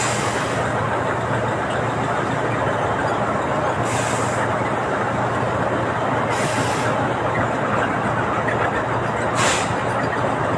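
Concrete batching plant machinery running steadily: a chevron-cleated conveyor belt moving under an aggregate bin gate. Three short hisses break in, about four, six and a half, and nine and a half seconds in.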